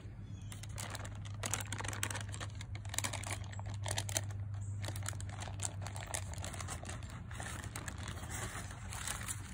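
A sheet of baking paper crinkling and rustling in irregular crackles as it is handled and peeled off a raw bacon lattice, over a steady low hum.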